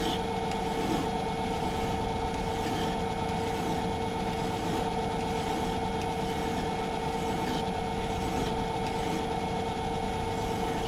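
A metal lathe running steadily with a constant hum, while a hand file is worked against the spinning part.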